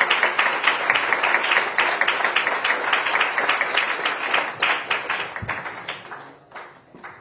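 Audience applauding: a dense clapping that thins out and dies away over the last couple of seconds, ending in a few scattered claps.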